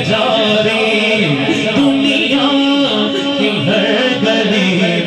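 A man singing a devotional Urdu manqabat into a microphone, in a melodic chanting style with long held notes.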